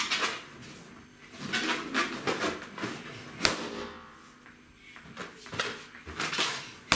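Latex balloons being squashed and burst by sitting on them: two sharp pops, one about three and a half seconds in and one at the very end, with shuffling and handling noise between.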